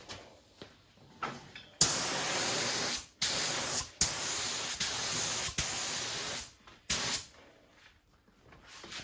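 Paint spray gun hissing in about five separate passes of a second or so each, starting about two seconds in, while it lays down a base coat of paint.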